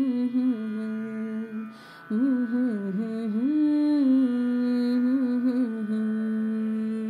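A singer hums a slow, wordless melody with ornamented turns over soft musical accompaniment. The humming pauses briefly about two seconds in and ends on a long held note.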